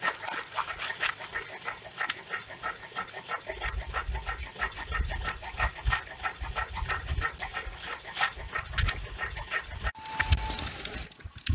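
Mk2 Stirling engine generator running, its mechanism making a fast, even clatter. Low rumble of wind on the microphone joins in for most of the middle stretch.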